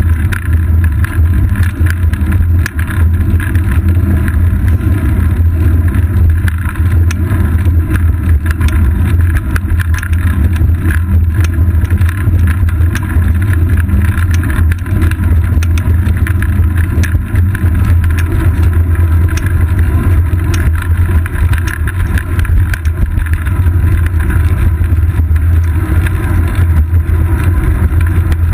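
Steady, loud low rumble of wind and road vibration picked up by a GoPro Hero 2 in its housing on a bicycle's seat post while riding, with a constant stream of small clicks and rattles.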